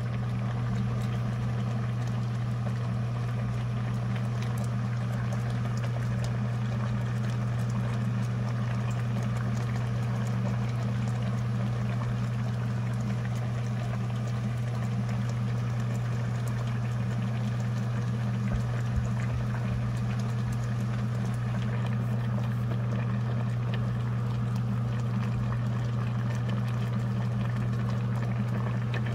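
Pot of bean sprout kimchi soup boiling, with faint bubbling and crackling over a loud, steady low hum.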